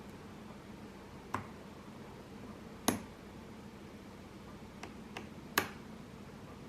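Lock pick and tension wrench working the pins of a padlock: a few sharp small clicks, the loudest about three seconds in and another just past five seconds, over a low steady hum.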